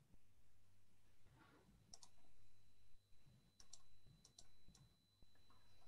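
Near silence: a low steady hum and a faint high whine, with several faint clicks from about two seconds in.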